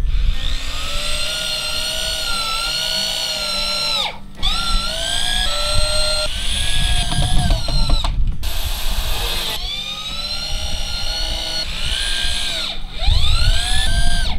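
Corded power drill with a Phillips bit driving 2.5-inch screws into 2x4 gussets. The motor whine climbs and sags in pitch under load, in several runs with short stops about four and eight seconds in.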